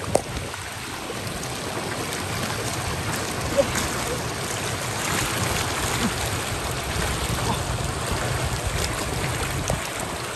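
Steady rush of flowing water, with two sharp knocks: one right at the start and one about three and a half seconds in.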